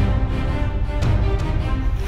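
Soundtrack music with a heavy low end, loud and steady.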